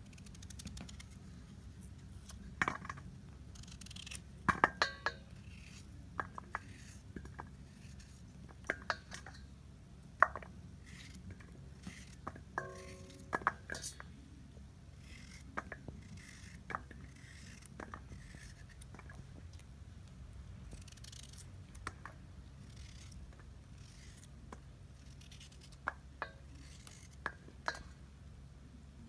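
Kitchen knife cutting raw potatoes into fries over a stainless steel bowl: irregular sharp clicks and taps as the blade knocks the bowl and cut pieces drop in, with one brief metallic ring near the middle. A low steady hum runs underneath.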